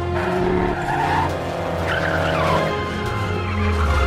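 Animated-film race sound: race car engines running and tyres skidding as cars slide through a corner, with music underneath.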